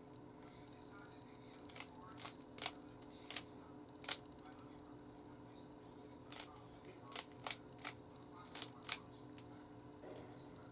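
Plastic Rubik's cube layers being twisted in quick turns, a dozen or so sharp clicks in two flurries, one group a couple of seconds in and another in the second half.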